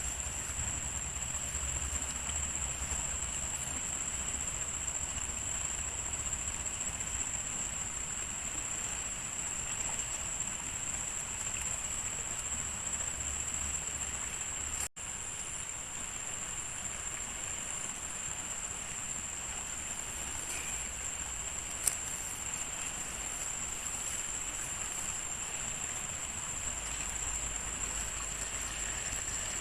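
Steady rushing of water with a thin, steady high-pitched whine running over it. The sound drops out for an instant about halfway through, and there is one sharp click a few seconds later.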